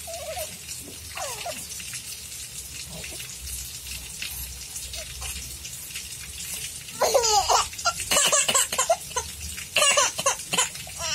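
Baby laughing. A couple of small coos early on give way to loud, repeated bursts of giggling from about seven seconds in.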